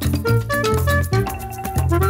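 Instrumental cartoon theme music with a steady beat, short pitched notes over a repeating bass line.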